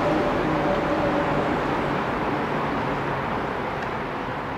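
Seoul Metro Line 2 electric train running over an elevated railway bridge and moving away, its rumble slowly fading as the last cars pass. A faint steady hum rides on it for the first couple of seconds.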